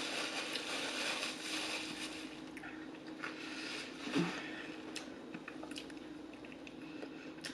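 Close-miked chewing of extra crispy fried chicken: a dense crunching for the first two seconds or so, then softer wet mouth sounds and scattered small clicks, with a short hummed 'mm' about four seconds in.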